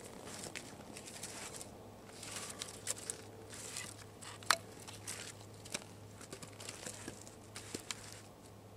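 Rustling and crinkling in scattered bursts from hands handling gear and sticks while kneeling in snow, with one sharp click about four and a half seconds in.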